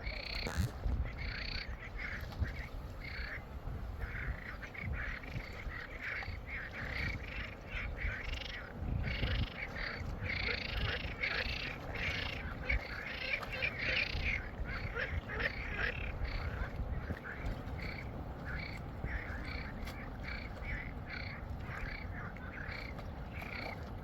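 Frogs calling in a chorus, many short repeated croaks overlapping, over a low rumble.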